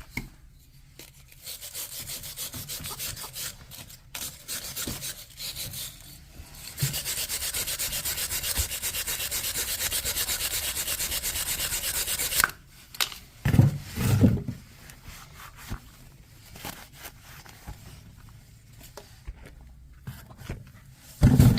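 Rapid, rasping scrubbing strokes of a brush against the rusted metal casing of an electric scooter motor, taking off the fresh salt-water rust. The strokes run for about ten seconds and grow harsher and faster in the second half. They stop suddenly, followed by a few heavy knocks as the motor is handled.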